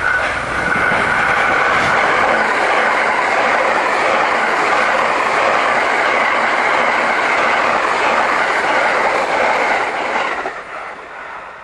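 A 683 series 4000 set coupled to a 681 series set, electric limited-express multiple units, passing at speed as a steady rush of wheel and rail noise with clatter over the rail joints. The noise drops away about ten and a half seconds in as the last car goes by.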